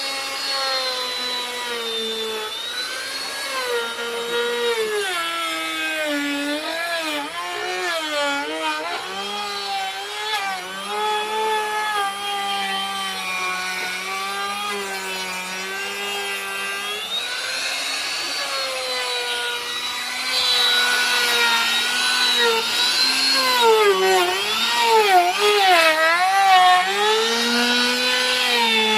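Electric wood router cutting a decorative pattern into wood. The motor's whine keeps dipping and recovering in pitch as the bit bites and eases off. The cutting grows louder and rougher about two-thirds of the way through.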